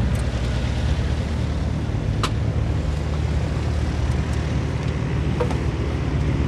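A steady low mechanical drone with a constant hum, which sets in abruptly just before and holds level throughout; a single sharp click sounds about two seconds in.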